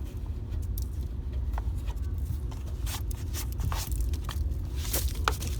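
Scattered scrapes, clicks and steps of someone moving and handling things, over a steady low rumble.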